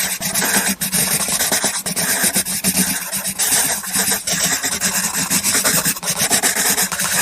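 Scribbling on paper: a continuous scratchy rasp made of many quick, irregular strokes, as in drawing and colouring a card.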